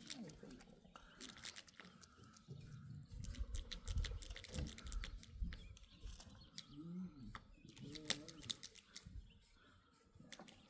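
Goats close by: scattered clicks and rustling with some low thumps, and two short low calls about two-thirds through.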